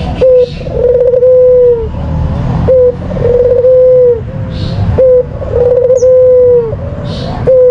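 White, red-eyed puter dove (albino Barbary dove) cooing loudly. It gives a repeated call of a short note followed by a longer, steady coo, about four times.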